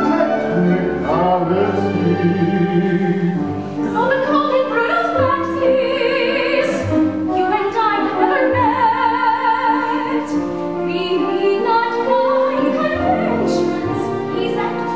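Classical-style musical-theatre singing with vibrato on sustained notes, over instrumental accompaniment.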